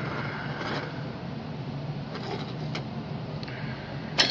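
Faint ticks and rustles of fingers bending component wire leads over on a small circuit board, over a steady low hum, with one sharp click near the end.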